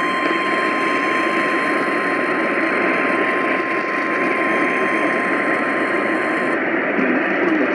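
AM radio static: a steady hiss of noise from a weakly received station, with a thin steady whistle tone through it that cuts off near the end.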